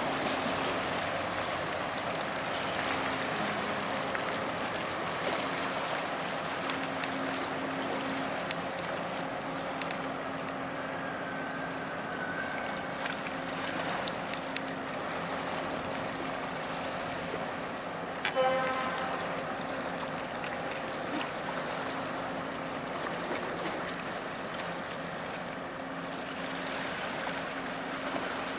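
Steady low engine drone from a passing container ship and its escort tug, over a wash of moving water. About eighteen seconds in comes one short, loud, pitched toot or call.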